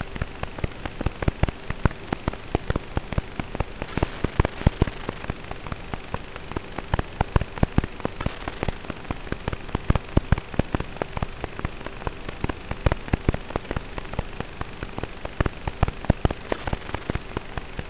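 Dense, irregular crackling clicks over a faint steady hum and hiss, picked up on the landed FPV drone's onboard camera audio. No motor sound: the quad is disarmed.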